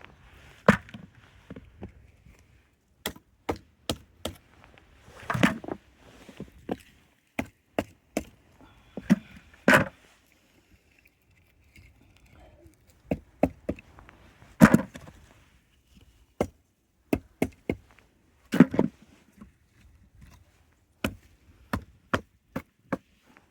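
Split firewood being knocked to shake frozen snow off it: irregular sharp wooden knocks, with a few heavier thuds every four or five seconds.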